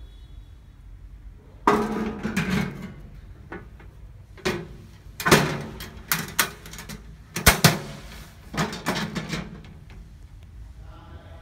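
Yato YT-0885 powder-coated steel toolbox being shut: the metal lid comes down with a clattering clunk a couple of seconds in. Then come several sharp metal clacks and rattles as its two chrome latches are snapped closed and the box is handled.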